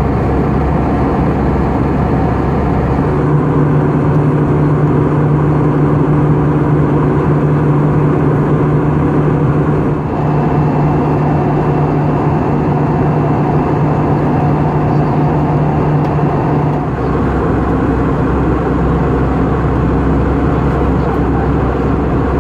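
Steady cabin noise of an Airbus A320-family airliner at cruise: the rush of airflow and the jet engines heard from inside the cabin. A low hum under it changes about 3 and 17 seconds in.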